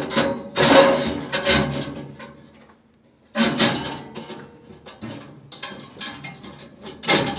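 Metal scraping and clunking as a gas furnace's burner assembly is slid back into the heat exchanger: several loud scrapes in the first two seconds, a brief lull, then a run of lighter knocks and rattles and one louder clunk near the end.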